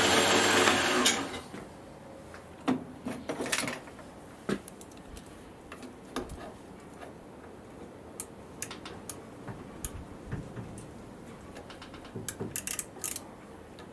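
A metal lathe running winds down and stops about a second in, then scattered small metallic clicks and clunks from handling tools and the workpiece, several in quick succession near the end.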